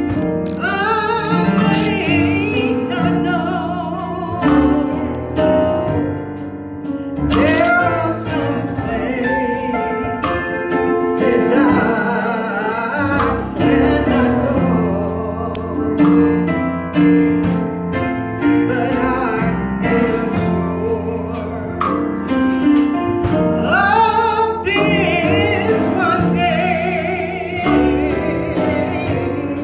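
Gospel song sung with vibrato into microphones over electronic keyboard chords, heard through the church's PA.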